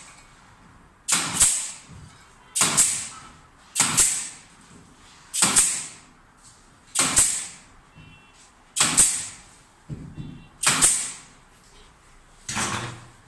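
Carpentry work: a regular series of about eight strokes, one every second and a half. Each starts sharply with a hiss and fades within about half a second.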